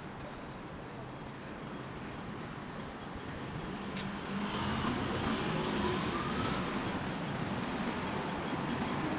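Urban road traffic noise: a steady hum, then a motor vehicle growing louder about halfway through, its engine pitch rising as it accelerates.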